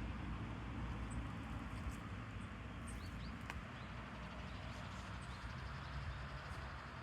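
Outdoor riverside ambience: a steady rushing noise with a low rumble of wind underneath, and a small bird giving short high chirps about once a second.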